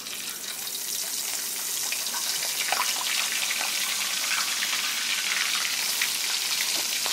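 Cornstarch-dredged shrimp deep-frying in hot oil: a steady sizzle with fine crackling, growing a little louder over the first second or two.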